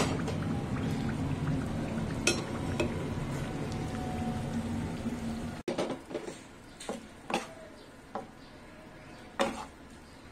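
Fish-shaped pitha deep-frying in hot oil with a steady sizzle. About halfway through this cuts to a spatula stirring a minced chicken filling in a frying pan, with scattered scrapes and taps on the pan.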